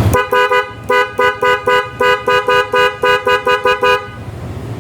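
A pair of Denso snail horns on a Yamaha NMAX scooter, newly wired through a relay, sounding together as a two-tone chord. They give a rapid run of about fifteen short beeps, some four a second, which stops about four seconds in. The horns are being tested with the engine running.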